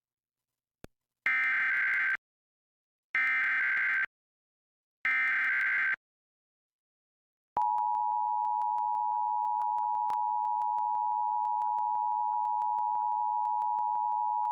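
Emergency Alert System tones: three bursts of SAME header data, a screechy digital warble about a second long each, then, about 7.5 seconds in, the steady two-tone EAS attention signal.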